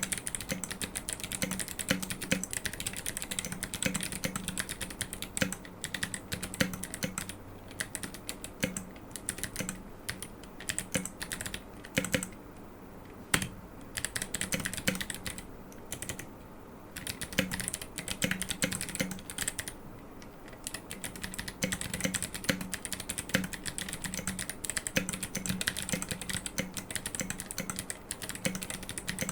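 Continuous typing on an aluminium-cased GK64 mechanical keyboard with Kailh Box Jade clicky switches and SA-height keycaps: fast, uneven keystroke clicks with a few short pauses around the middle.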